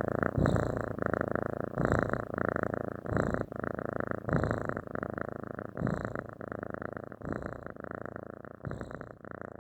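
Domestic cat purring steadily, the purr swelling and easing about once every one and a half seconds with each breath, growing fainter toward the end.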